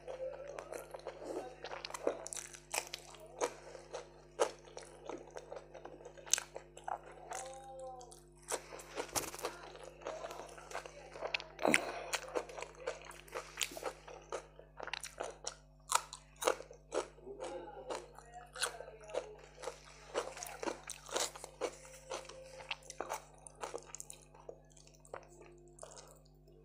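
Close-up mouth sounds of chewing crunchy fried okra (bhindi) and roti: many sharp crisp crunches and wet chewing clicks, coming irregularly throughout.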